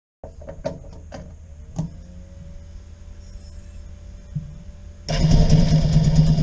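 A few sharp clicks over a low hum, then about five seconds in the APTrikes125's 125 cc engine starts running with a steady, even beat through its welded-up muffler.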